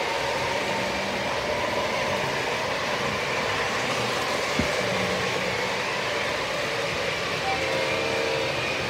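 O scale model train running past on three-rail track: a steady rolling rumble of wheels with a motor hum, and one sharp click about halfway through.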